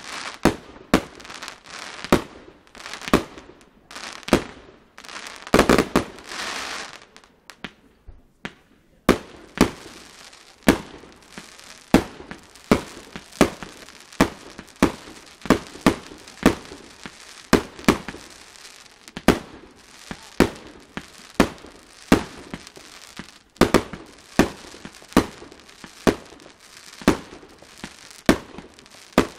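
Progres consumer firework cake firing shot after shot, each launch a sharp bang, about one to two a second, with crackling between. A longer dense burst comes about six seconds in, and a short lull follows before the shots resume.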